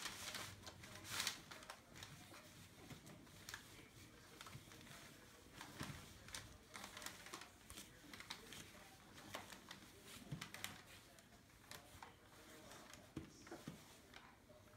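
Faint, scattered rustling and crinkling of newspaper bedding as puppies shift and nurse on it, a little louder in the first second or so.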